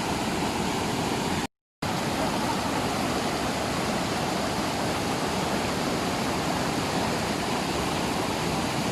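Steady rushing of falling and flowing water at a waterfall, a constant even roar. The sound cuts out completely for a moment about a second and a half in.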